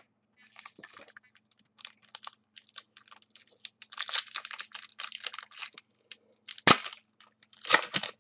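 A trading card pack wrapper being crinkled and torn open: a run of crackles that thickens around the middle, then two loud sharp crackles near the end.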